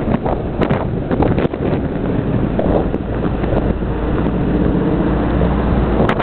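Wind buffeting the microphone in rough gusts, with a steady low engine drone coming in about halfway through and continuing.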